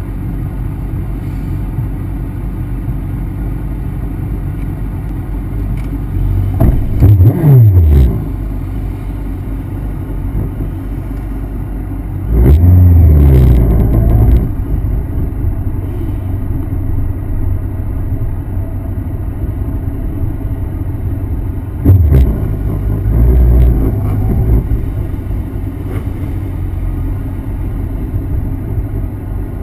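Sport motorcycle engines idling with a steady low rumble, with three short bursts of revving, each a rising then falling engine note. The revving comes about a quarter of the way in, near the middle, and again about three quarters of the way through.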